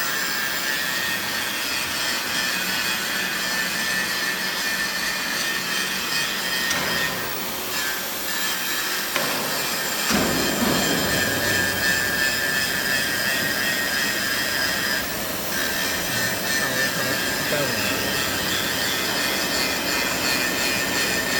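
Steady machine-shop noise: a continuous mechanical whir with high, steady whining tones. The lower rumble grows fuller about halfway through.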